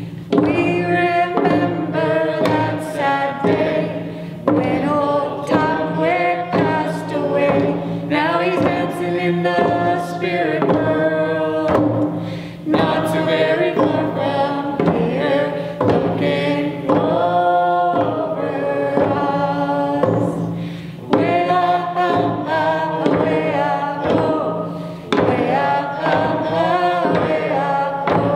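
Group of voices singing a song over a steady beat on hand-held rawhide frame drums struck with beaters.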